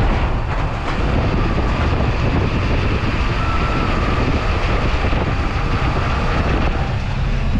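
Steady rush of wind on the microphone of an action camera held outside a moving vehicle's window, with the vehicle's engine and tyre noise underneath.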